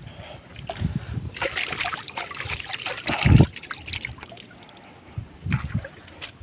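Water splashing in the shallows as a hooked fish is grabbed by hand at the rocky water's edge. There is a heavy low thump about three seconds in.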